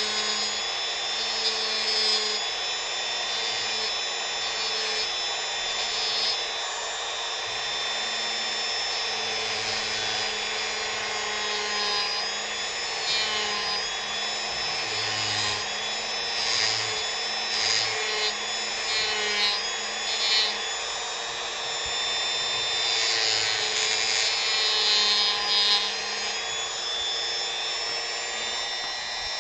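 Dremel rotary tool running at high speed, its bit working into a wooden carving: a steady high whine that wavers as the bit bites in and eases off.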